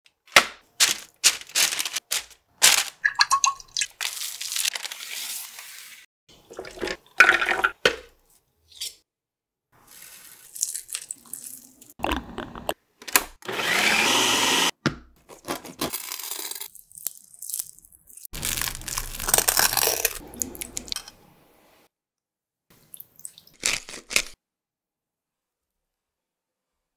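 Kitchen prep sounds in quick succession: parchment paper crinkling and rustling at the start, then a Ninja food processor running for about three seconds midway. More scrapes and rustles follow, including another stretch of steady noise, before the sound stops near the end.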